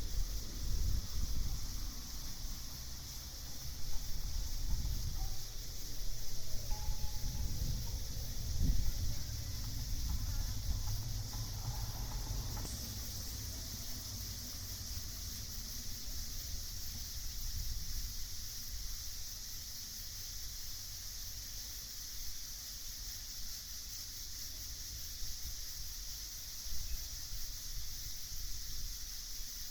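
Night insects, such as crickets, chirring in a steady high-pitched chorus, with low rumbling wind gusts on the microphone during the first half.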